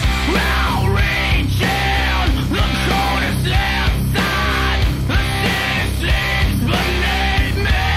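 Loud hard rock music with heavy bass and gliding high notes that recur about once a second.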